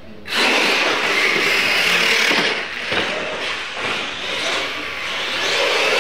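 Radio-controlled monster trucks driving hard across a concrete floor, their motors and tyres making a loud rushing noise. It starts abruptly just after the start and swells and dips as the trucks run.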